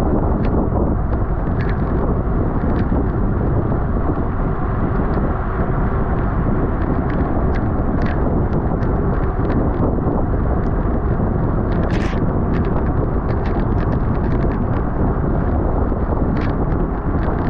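Wind rushing over the microphone of a bicycle racer riding at race speed: a loud, steady rumble, with scattered brief clicks.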